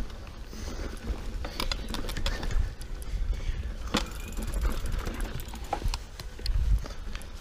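Mountain bike rolling fast over a dirt singletrack: a steady low rumble of tyres and wind on the microphone, with scattered clicks, knocks and rattles from the bike over bumps.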